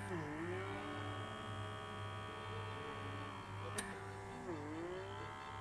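Small electric motor of a handheld vacuum blackhead remover humming steadily; its pitch sags and recovers twice. A single sharp click sounds a little past the middle.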